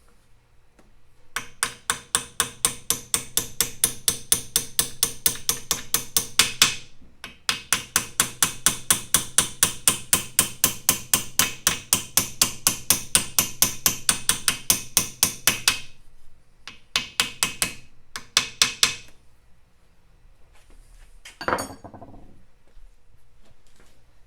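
Hammer blows on metal in three fast runs, about four strikes a second, each with a short metallic ring: driving out the bolts to split the crank assembly. A single scrape comes near the end.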